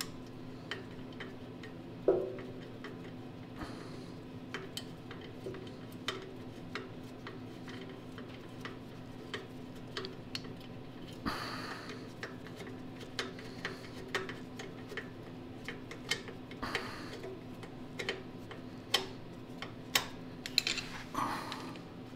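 Small metal parts clicking and tapping irregularly as a carburetor and its mounting hardware are worked onto a small Tecumseh 10 HP engine by hand, with a sharper knock about two seconds in. A faint steady low hum runs underneath.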